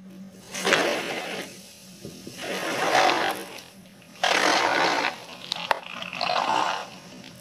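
Plastic cola bottle being flattened under a car tyre, forcing fizzing cola and foam through its neck into a balloon: four rasping, sputtering surges a couple of seconds apart, with a few sharp crackles of the plastic near the end.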